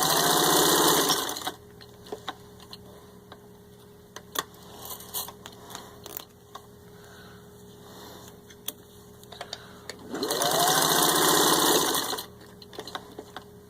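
1950 Singer 15-91 sewing machine running up to speed and stitching through four layers of soft leather in two short runs, about a second and a half at the start and about two seconds near the end. Light clicks fall between the runs.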